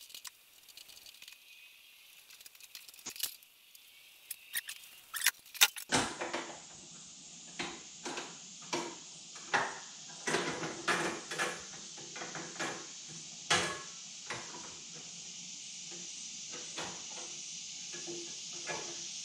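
Irregular clicks, taps and light knocks of hands, tools and parts being handled in a Volkswagen bus's engine bay, roughly one or two a second. A steady hiss comes in about six seconds in.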